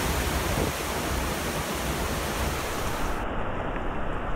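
Heavy hurricane rain and high wind making a steady rushing noise. About three seconds in, the sound turns duller as the highest hiss drops away abruptly.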